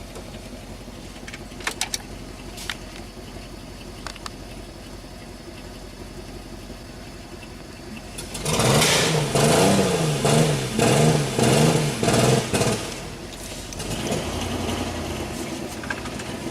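A 2000 Ford Explorer's freshly reassembled engine runs low and steady with a few light clicks. About halfway in it is blipped through a quick series of about six revs over some four seconds, then settles back to a steadier, louder run. It is a rough-running engine that is only just running after the rebuild.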